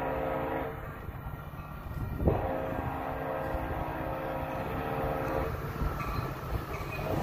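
Approaching Metra F40 diesel locomotive sounding its horn over the low rumble of the train. One blast ends about half a second in, a long blast starts about two seconds in and lasts some three seconds, and another begins near the end.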